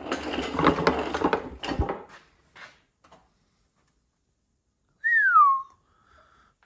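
About two seconds of rushing, clattering noise from the two-post car hoist being lowered. About five seconds in comes a single short whistle that slides down in pitch, the loudest sound here.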